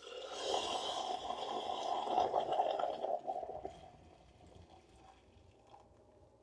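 Liquid pouring or sloshing into a container for paint stripping. It runs steadily for about three and a half seconds, then tails off.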